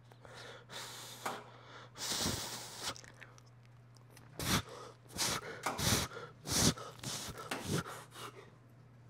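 A man breathing hard in short, forceful breaths through a high-rep set of calf presses, the breaths coming quicker and louder in the second half as he strains toward failure.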